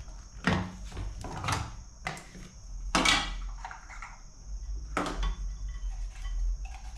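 About four sharp knocks and scrapes of a knife and chopping board as chopped onion is scraped off the board to be transferred, the loudest about three seconds in.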